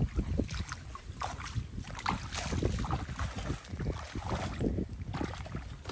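Bare feet wading through shallow muddy water, each step splashing and sloshing at an irregular pace.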